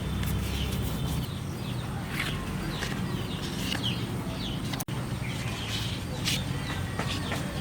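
Birds chirping repeatedly over a steady low hum; the sound cuts out for an instant about five seconds in.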